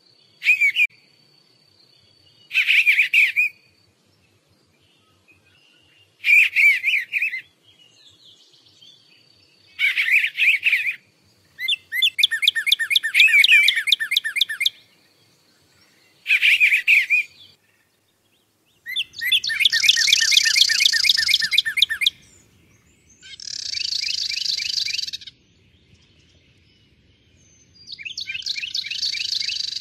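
Songbirds singing in separate phrases every few seconds, the later phrases rapid trills. A faint, thin, steady high note runs under the first half.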